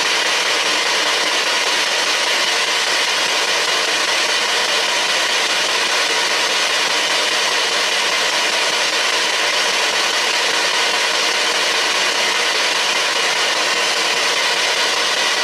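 P-SB7 spirit box sweeping through FM radio stations: loud, steady radio static hiss, with no voice picked out of it.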